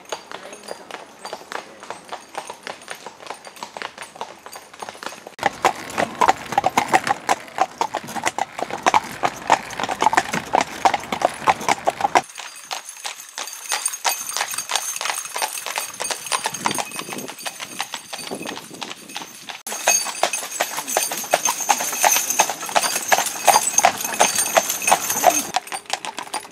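Hooves of a pair of carriage horses clip-clopping steadily on a tarmac lane as they pull a carriage, the sound jumping in level several times as the shots change.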